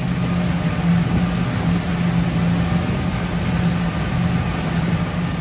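Sea Ray 310 SLX bowrider under way at speed: a steady engine drone under an even rush of wind and water noise.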